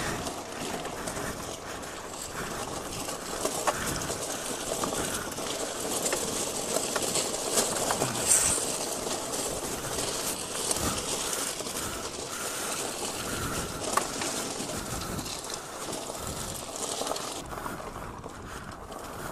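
Electric bike jolting over railway ballast stones and old wooden ties: a continuous rattle and crunch of gravel and frame, broken by frequent sharp knocks. The clatter eases near the end on smoother gravel.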